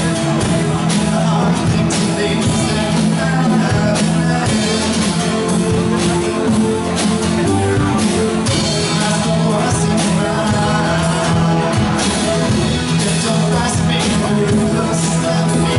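Live band playing a rock-style song on electric bass, drum kit, acoustic guitar, hand drums and keyboard, with a steady beat.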